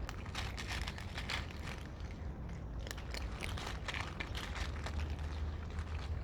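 Cats chewing their food: a quick, irregular run of short clicks over a steady low hum.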